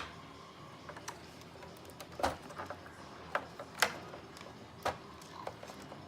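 Sharp plastic clicks and snaps at uneven intervals, about six in all, as wiring connectors are unplugged from a pachinko machine's circuit board.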